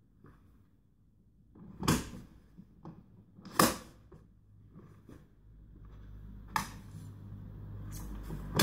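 Sharp plastic clicks and knocks from a Camarelo Baleo Shine pram's infant car seat being handled and worked on its chassis: four loud clicks, about two, three and a half and six and a half seconds in and once near the end, with low handling rumble in the second half.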